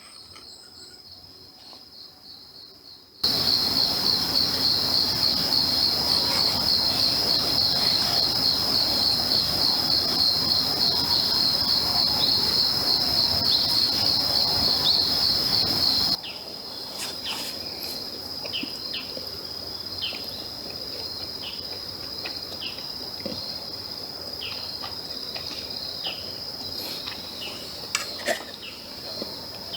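Insects chirring in a steady, high, finely pulsing chorus. From about 3 s to 16 s it is much louder, over a hiss. After that it drops back, and scattered small clicks and pops come through it.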